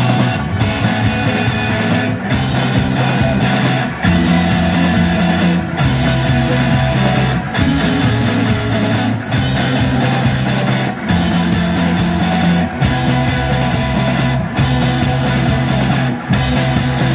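Live indie rock band playing: electric guitars and drum kit, with a heavy low line whose held notes change about every two seconds.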